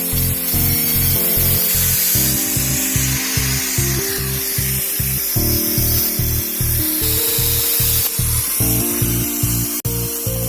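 Background music with a steady beat, over the steady hiss of a power tool working.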